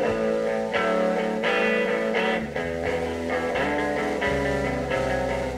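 Rock band playing a blues number live, with no singing: electric guitar picking a run of notes, and bass guitar notes coming in about halfway through.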